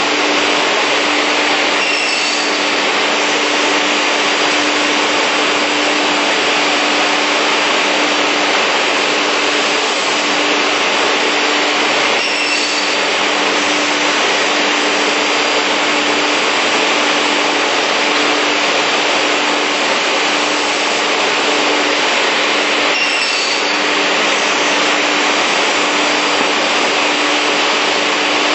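Industrial beam saw running: a loud, steady rushing noise from its saw motors and dust extraction over a constant hum, with three brief faint changes about ten seconds apart.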